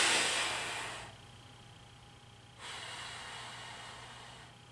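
A man breathing out hard through a held deep groin stretch: a strong exhale right at the start that fades over about a second, then a second, longer and softer exhale about two and a half seconds in. The breathing shows the strain of holding the stretch.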